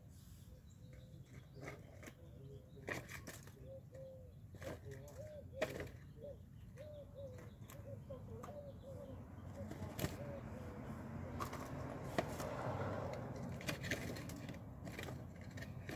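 Light clicks and taps of metal tongs and a small cardboard mini bin being handled on concrete, with the loudest clicks about five and twelve seconds in. A faint wavering pitched sound comes and goes through the middle, and a soft rushing noise swells in the second half as the bin is lifted.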